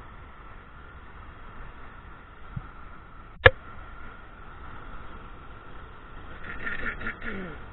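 Cast of a spinning rod and reel over a steady rush of flowing tailwater: one sharp click about three and a half seconds in, then a short rattly, scraping burst near the end as the reel is handled.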